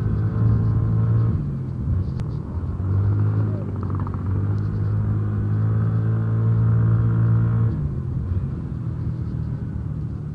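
Yamaha motor scooter's engine running under way at a steady pace. The engine note eases off about a second in, picks back up, and drops again near the end as the throttle is let off.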